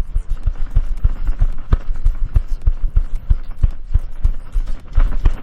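Running footsteps, a quick train of dull low thumps several a second, jolting a camera worn by the player.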